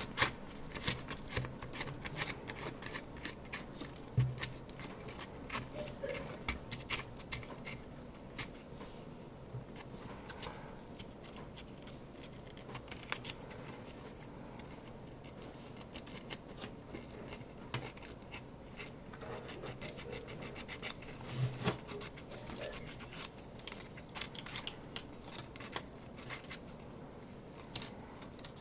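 Irregular small clicks and dry scratching of hand work on a plastic keyboard keycap.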